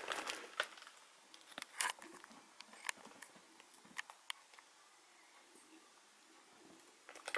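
Faint plastic shrink-wrap on a firework cake box crinkling and clicking as the box is handled, a few scattered sharp ticks with quiet between them.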